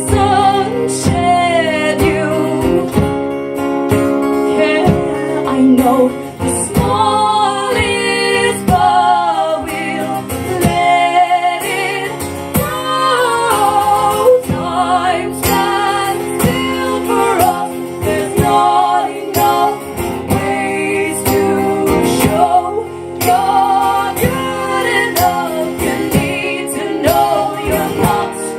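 Live acoustic song: women's voices singing over strummed acoustic guitars.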